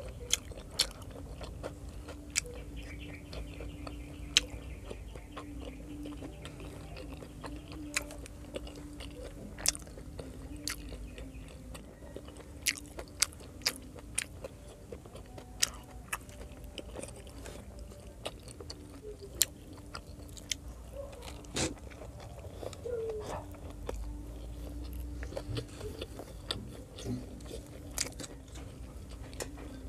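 Close-miked chewing of pork adobo and rice eaten by hand, with many sharp wet clicks scattered throughout.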